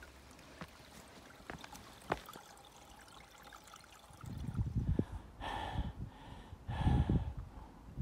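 A faint trickle of water among stones and wet leaves. About halfway through, heavy low rumbling blasts on the microphone take over, loudest twice with a hiss in them.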